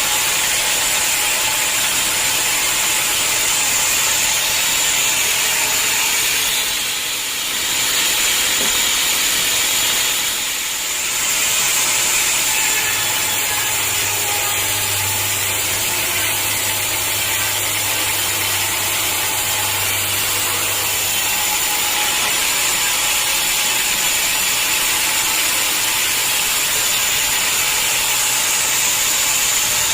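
Band sawmill running steadily, its blade cutting through a hard acacia log with a high whine over dense rasping noise. The sound eases briefly twice.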